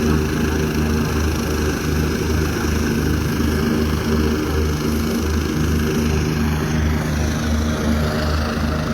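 Helicopter main rotor beating steadily, a low thudding at about three beats a second over continuous engine and turbine noise.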